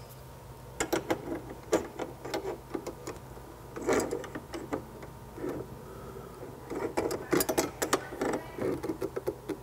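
Channel-lock pliers clicking and scraping on the stainless flex connectors' threaded nuts as they are snugged onto a water softener's control valve fittings. The clicks and short rattles come in irregular clusters, thickest about a second in, around four seconds and again near the end.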